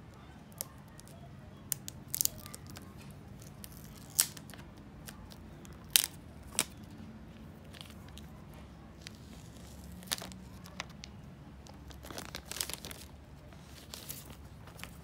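Clear plastic film being torn and peeled off an Apple iPhone 12 box: scattered sharp crackles and tears, with a denser run of crinkling near the end.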